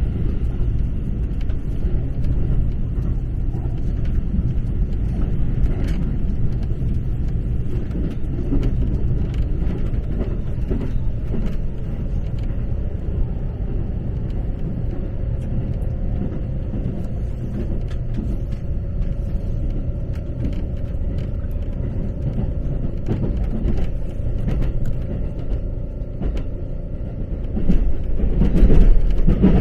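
Inside a JR local electric train on the move: a steady low rumble of wheels on rails, with scattered short clicks. A faint steady hum joins about halfway through, and the running noise grows louder near the end.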